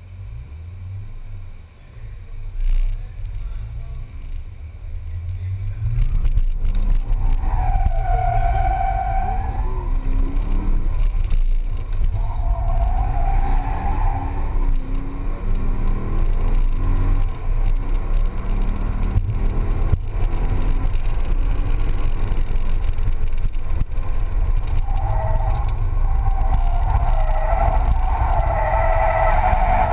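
Corvette Z06's 7.0-litre V8 heard from inside the cabin. It is fairly quiet for the first few seconds, then runs loud, revving up and down. Steady tyre squeal comes in stretches about 8 and 12 seconds in and again over the last few seconds as the car is drifted.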